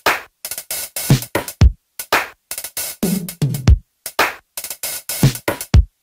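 Electronic background music: a choppy drum-machine beat with deep kicks that drop in pitch, broken by short silent gaps, cutting off just before the end.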